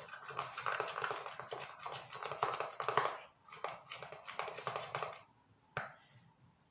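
Homemade slime made from peel-off face mask being kneaded and squeezed by hand, giving dense sticky crackling clicks in three stretches that stop about five seconds in, followed by one sharp click.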